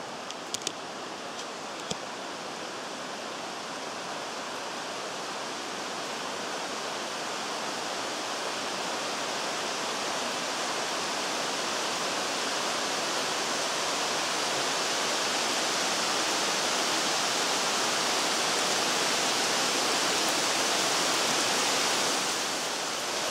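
Thunderstorm rain coming in, a steady hiss of rain falling on the trees and ground. It grows gradually louder and eases slightly near the end.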